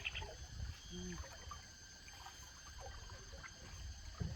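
Faint trickling and light splashing of canoe paddles dipping into lake water, with a brief low hum about a second in.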